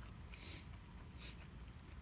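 Faint sounds of a person eating: two short breathy, hissy noises, about half a second and a second and a quarter in, over a low steady rumble.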